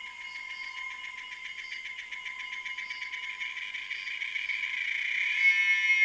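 Calling insects: a fast pulsing trill that grows steadily louder and, about five seconds in, turns into a loud, steady, shrill buzz. A thin steady whistle runs underneath.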